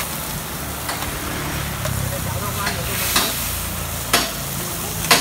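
Corn kernels sizzling in a shallow metal pan while a metal spatula stirs and scrapes them, with a few sharp clanks of the spatula against the pan, about three seconds in, four seconds in and near the end.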